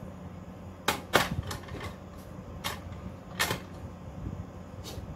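A serving utensil clacking and tapping against a frying pan and plates as food is dished out: a quick run of sharp clacks about a second in, then a few single knocks.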